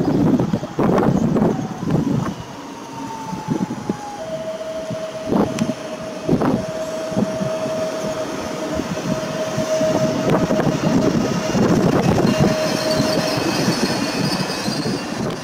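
PKP Intercity ED161 (PESA Dart) electric multiple unit running past close by, with steady rumble and knocks from the wheels on the track. A high whine glides down a little, then holds steady for most of the pass. Gusts of wind hit the microphone in the first couple of seconds.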